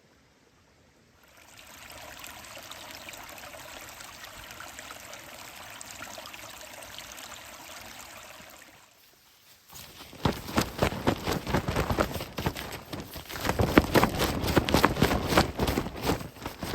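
Steady trickling, pouring water for about seven seconds, then after a brief pause a dense, irregular run of loud clicks and knocks.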